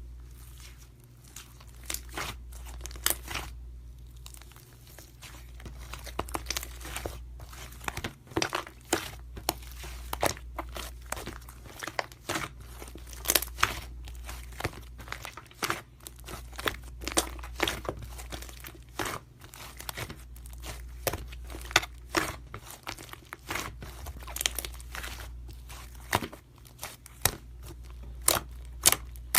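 Slime being squeezed and pressed by hand, giving a dense run of irregular crackling clicks and pops, over a low steady hum.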